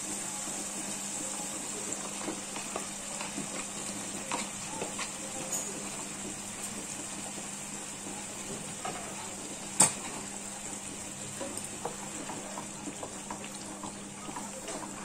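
Tomato and onion-garlic-ginger paste sizzling and bubbling in hot oil in a non-stick pan, with small crackles. One sharp knock about ten seconds in, and a wooden spatula stirring through the paste near the end.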